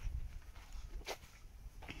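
Footsteps of someone walking on dry grass and dirt: two distinct steps about a second apart, over a steady low rumble.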